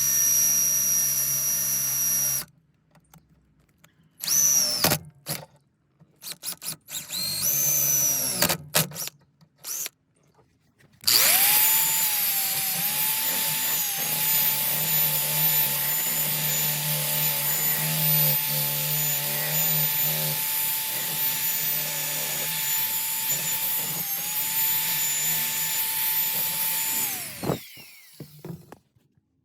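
Power drill drilling holes through a car's sheet-metal floor for a shifter base plate. A short run and two brief spin-ups come first, then one long steady run of about fifteen seconds that dips slightly in pitch twice as it bites, and stops abruptly near the end.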